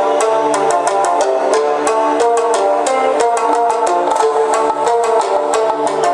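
A song led by a plucked string instrument playing through a small JBL Tune Bluetooth speaker, loud and steady, as a test after its battery was replaced.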